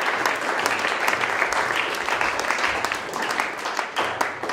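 Audience applauding: many hands clapping together, dying away at the end.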